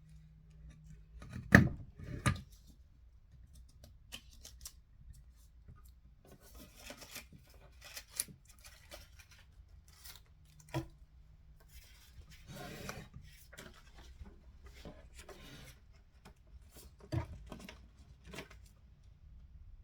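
Craft materials handled by hand on a work surface: sharp clicks and knocks, the two loudest about a second and a half in, with short stretches of scraping and rustling between them.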